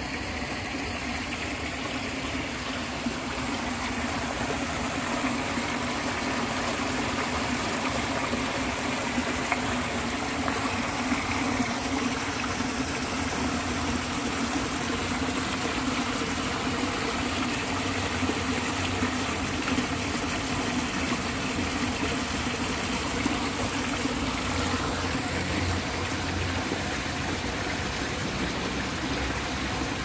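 Water running steadily along a narrow concrete drainage channel.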